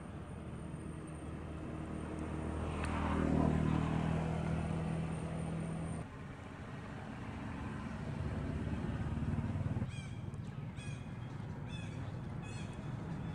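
A motor vehicle's engine passing by, its hum swelling to its loudest about three to four seconds in and then falling away, with engine hum carrying on after. Near the end, a run of about five short, high chirping calls repeats under a second apart.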